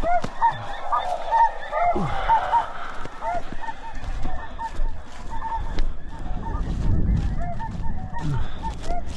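A flock of light geese, Ross's and snow geese, calling: many short, high honks repeating and overlapping without a break, with a low rumble around seven seconds in.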